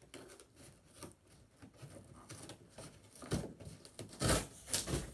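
A cardboard parts box being cut and torn open: scissors, tearing and rustling packaging in a series of short rips, louder in the second half.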